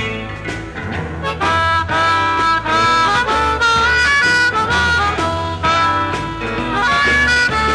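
Live psychedelic blues band: a blues harmonica plays wailing lines with bent notes over a steady bass and drum groove.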